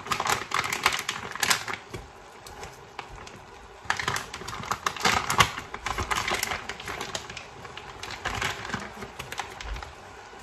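Clear plastic bag crinkling and crackling in bursts as it is squeezed and scraped to empty thick curry paste, with about three clusters of rapid crackly clicks separated by quieter gaps.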